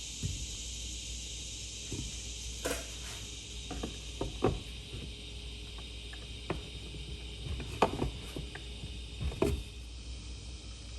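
Irregular light clicks and knocks from hands and a spoke wrench working on a bent BMX bicycle wheel's spokes while truing it, over a steady high hiss.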